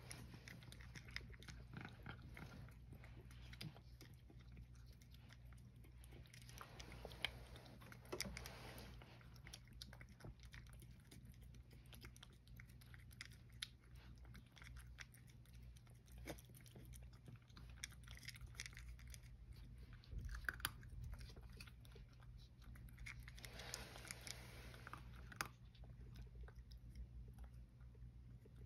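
A cat eating from a small ceramic bowl: quiet, irregular chewing clicks.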